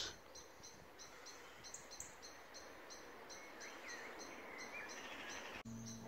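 Faint garden ambience: an even chirping repeats about three times a second, with a few short bird calls in the middle. Distant cathedral bells begin ringing near the end.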